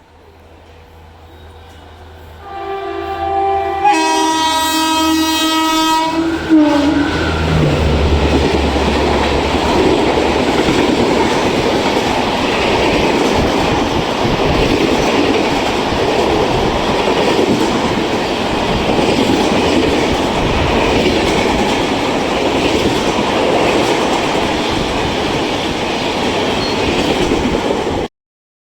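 WCAM-2 dual-voltage electric locomotive honking its horn for several seconds as the express passes without stopping, the pitch dropping as it goes by. The steady rumble and clickety-clack of the coaches running through at speed follows for about twenty seconds, then cuts off suddenly near the end.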